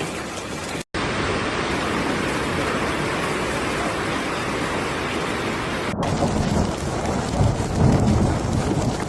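A hailstorm with heavy rain pelting down in a dense, steady hiss. Thunder rumbles low and strengthens in the second half. The sound cuts out briefly about a second in.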